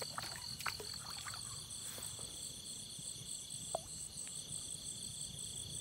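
Crickets and other night insects calling in a faint, steady chorus of rapid, even pulses, with a steady high whine under it. A few soft ticks sound here and there.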